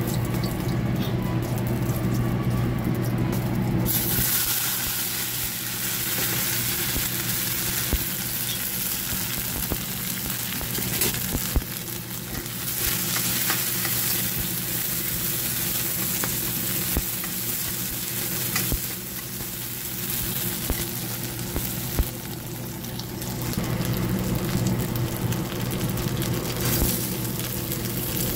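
Garlic and curry paste sizzling in hot oil in a steel wok, the hiss starting abruptly about four seconds in. A metal spatula clicks and scrapes against the wok now and then, over a steady low hum.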